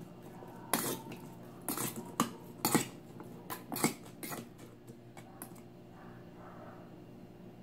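A metal spoon clinking and scraping against a stainless steel bowl as diced raw fish is stirred: a quick, irregular run of clinks that stops about five and a half seconds in.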